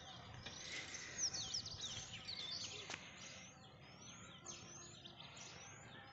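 Birds chirping: many short, high calls sweeping up and down in pitch, settling into a run of rising chirps about two a second in the second half. A single sharp click sounds about halfway through.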